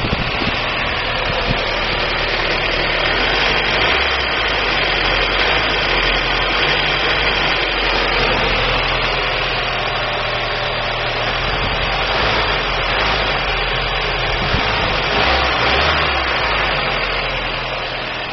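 1999 Daewoo Nubira's 2.0 L DOHC four-cylinder engine running steadily at idle, with a misfire.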